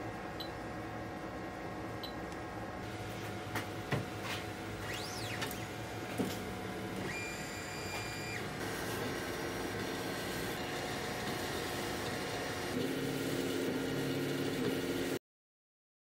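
Anycubic FDM 3D printer running: its stepper motors whine at steady pitches that shift from one move to the next, over a constant fan hum. There are a few clicks a few seconds in and a pitch sweep up and back down about five seconds in, and the sound cuts off suddenly near the end.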